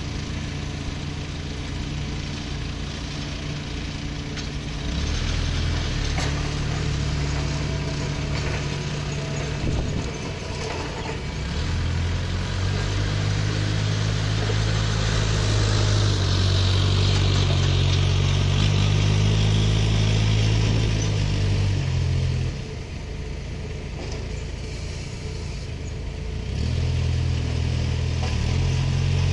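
Engine running and being revved in steps, its pitch and loudness rising and falling. It is loudest through the middle, drops back about two-thirds of the way in, and picks up again near the end.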